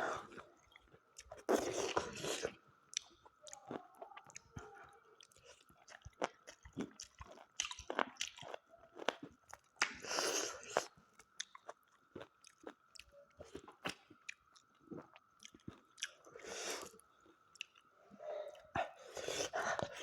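A person chewing and biting into smoked mutton leg curry close to the microphone: many small wet clicks and crunches, with several louder bursts of mouth noise spread through.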